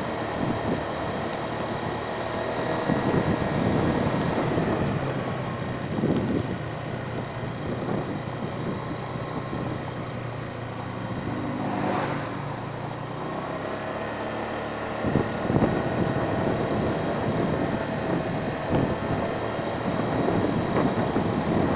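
A vehicle engine running steadily while riding uphill, with rough rumbling under it and a brief whoosh about twelve seconds in.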